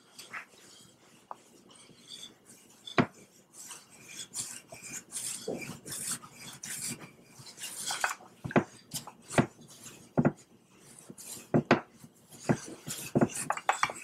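Rolling pin working dough on a countertop: irregular knocks and clatters with scraping and rustling between them, more frequent from about four seconds in.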